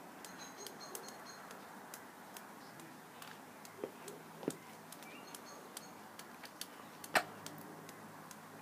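Quiet outdoor garden ambience with faint bird chirps, short high calls near the start and again about five seconds in, and scattered sharp clicks throughout, the loudest about seven seconds in.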